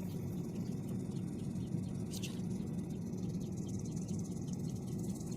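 Forge burner running with a steady rushing roar while the knife blade is heated for hardening.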